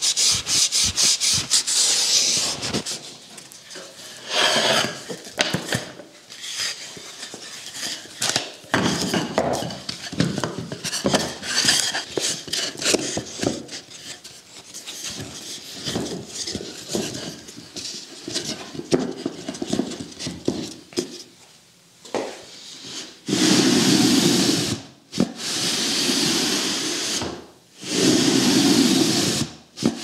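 Quick scrubbing strokes as paste is rubbed into a wooden groove, then scattered clacks and knocks of wooden slats being handled. Near the end, a wooden-slat tambour door rattles and rubs along its curved track in three long pushes.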